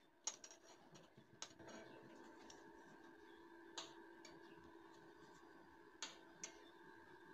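Quiet, light metal clicks as short steel flat-bar pieces are set down on a steel plate, about five taps spread out, over a faint steady hum.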